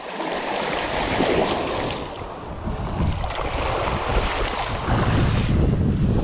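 Small surf waves washing and splashing in the shallows, with wind rumbling on the microphone.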